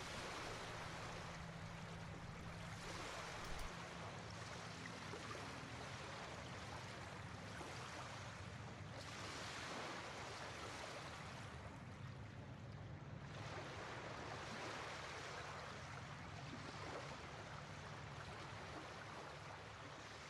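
Faint rushing water, a steady wash that swells and eases every few seconds.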